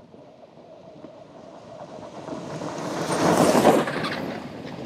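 Electric off-road race car with twin 9-inch DC motors driving past at speed on a dirt track: the rattling run of the car on the dirt builds, peaks about three and a half seconds in and falls away as it goes by.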